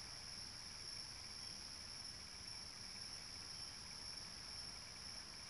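Faint, steady chorus of crickets at night, a continuous high-pitched trill over a low hiss, picked up by a security camera's microphone.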